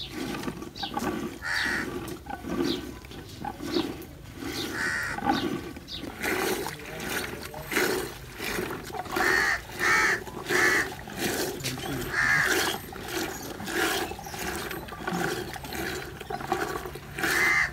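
Hand-pulled wooden butter churn (madhani) turning in a clay pot of curd: a rhythmic churning sound, one pulse with each pull of the rope, as the butter granules gather into a lump. Short, louder calls come now and then over it.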